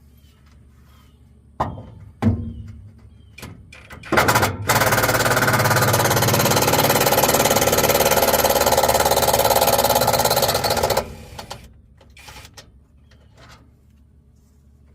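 Power bit driver hammering on a bolt for about seven seconds, starting about four seconds in and cutting off sharply. A few sharp knocks come just before it.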